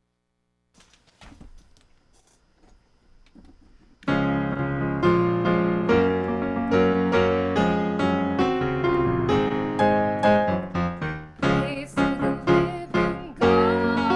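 Near silence with a few faint clicks at first, then piano music starts abruptly about four seconds in and plays on: chords and melody notes struck in a steady flow.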